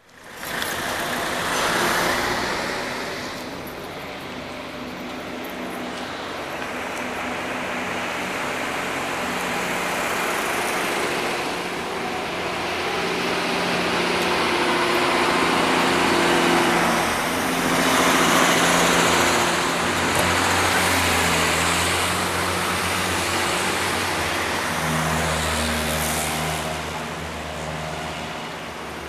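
Road traffic: motor vehicles passing on a street, the noise swelling and fading as each goes by, with a low engine drone through much of the second half.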